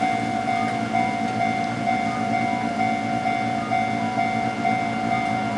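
Japanese electronic level-crossing alarm ringing, a steady repeating ding about three times a second, over a low rumble.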